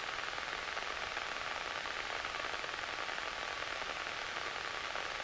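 Steady hiss on the aircraft's headset audio feed, with a faint steady high tone underneath.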